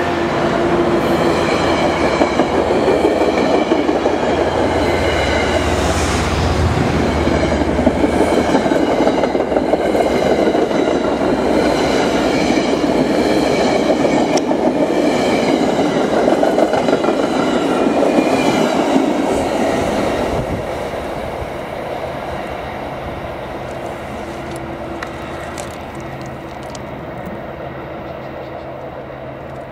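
Metro-North push-pull passenger coaches rolling past close by, gathering speed: a steady loud rumble of wheels with clickety-clack over the rail joints and some metallic ringing. About two-thirds of the way through the sound begins to fade steadily as the end of the train pulls away.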